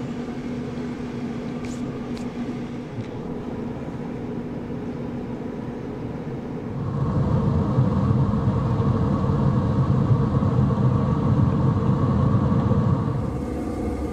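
Pit Boss pellet grill running its startup cycle, its fan humming steadily. A louder low rumble comes in about seven seconds in and drops away near the end.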